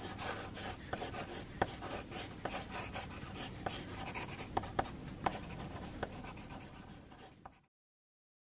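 Pencil scratching across paper in quick sketching strokes, with frequent sharp ticks of the lead against the sheet; it cuts off suddenly near the end.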